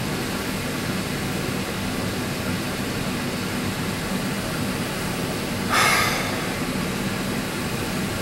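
Steady mechanical hum, like a fan or heater running, with one brief noisy burst of about half a second just before six seconds in.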